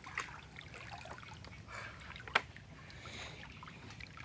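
Faint lapping and trickling of river water with small splashes, and one sharp click a little over two seconds in.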